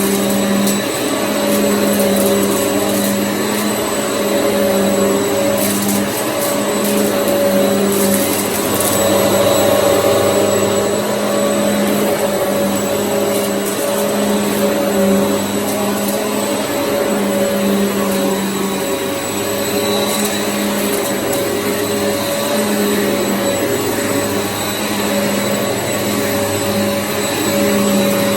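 Hoover EliteSwivel bagless upright vacuum cleaner running steadily while vacuuming, its motor humming over a constant rush of suction, with a few brief crackles about six and nine seconds in.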